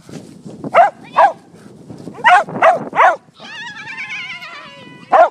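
Dogs barking at a flyball practice: about six short, sharp barks, with a long, high-pitched, wavering cry in the middle of the run of barks, from about three and a half seconds in to just before the last bark.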